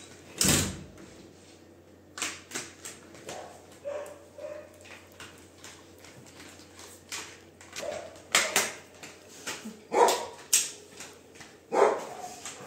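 Labrador retriever playing with a hard plastic toy on a sofa cushion: sharp knocks and clicks every second or two as the toy is bitten and pushed about, with short dog vocal sounds among them. The loudest knock comes about half a second in.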